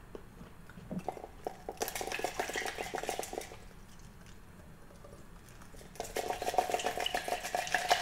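Ice cubes rattling and clinking against a glass jar as it is lifted and tipped. There are two spells of rapid clinking, one from about a second in and one from about six seconds in, with a quiet stretch between them while he drinks.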